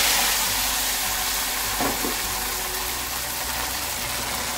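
Hot oil with fried onions sizzling as it is poured over thick hareesa in an aluminium pot, a tempering (tadka) step. The hiss slowly dies down, with a light knock about two seconds in.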